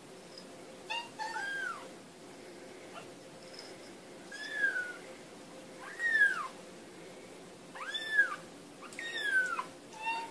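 Young kittens mewing: about six short, high-pitched mews, each rising then falling in pitch, spaced a second or two apart.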